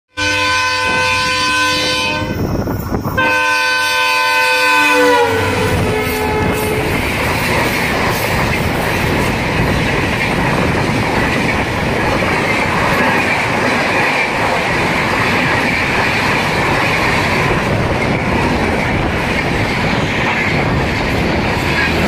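WDP4D diesel locomotive's horn sounding in two long blasts, its pitch dropping as the locomotive passes about five seconds in. Then the steady rumble and wheel clatter of LHB passenger coaches running past at speed.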